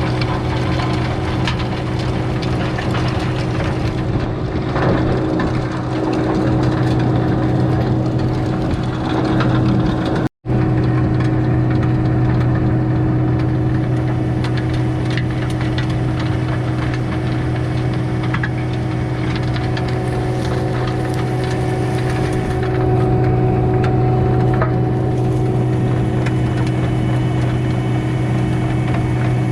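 Skid steer engine running steadily under load, driving a hydraulic rotary tiller whose tines churn through hard-packed soil and wood chips. The sound cuts out for a split second about ten seconds in.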